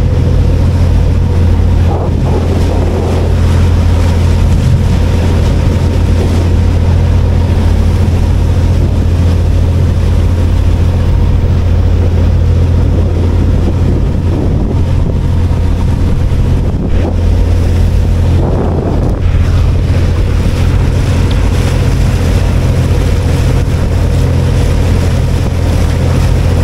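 Cruise boat's engine running steadily under way, a constant low drone with a faint steady tone above it, with wind rumbling on the microphone.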